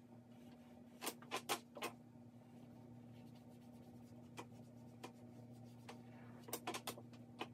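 Charcoal pencil scratching on drawing paper in short, quick strokes: a cluster of four about a second in, a couple of single strokes midway, then another cluster of four near the end.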